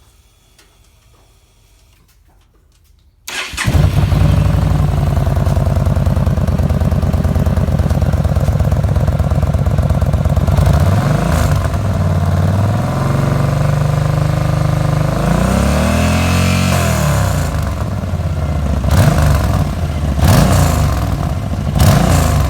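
2012 Yamaha Stryker's V-twin engine started through its stock muffler, whose baffles have been drilled with 3/8-inch holes. It catches about three seconds in and idles, then is revved, with a longer rev in the middle and several short blips near the end.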